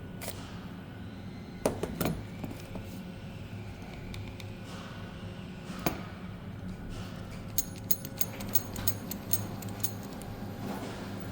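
Light clicks and clinks of small metal and plastic parts of cordless electric scissors being handled while the blade is replaced. There are a few single knocks, then a quick run of clicks from about seven to ten seconds in, over a steady low hum.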